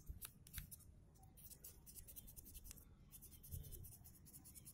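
Near silence with faint scratchy rustling and scattered small clicks.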